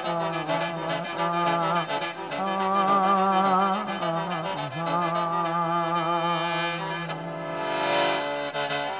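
Mor lam band playing an instrumental passage between the sung lines: a reedy wind melody wavers over a steady low drone. A brief hiss swells up about eight seconds in.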